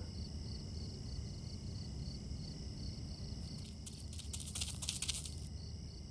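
Evening ambience of crickets chirping in a steady pulse, about three chirps a second, over a low steady rumble. A short rustling, scratching noise sounds about four to five seconds in.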